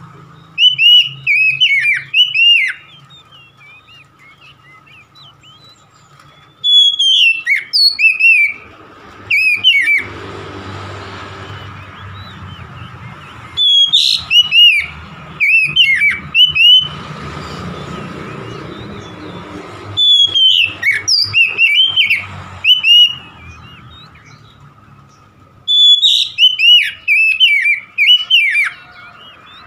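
Oriental magpie-robin (kacer) singing loudly in five bouts of quick, sliding whistled phrases, each a few seconds long with short pauses between. A faint steady hum and hiss sit underneath.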